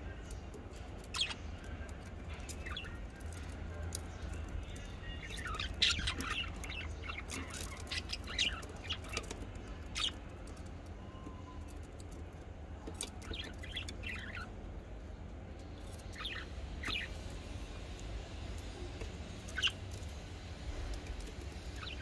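Budgerigars chirping in short, scattered high calls, busiest around six seconds in, over a steady low rumble.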